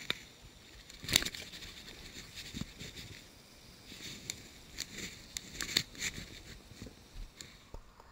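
Handling noise close to the microphone: scattered clicks, knocks and rustles, the sharpest knock about a second in and a cluster of short clicks a few seconds later.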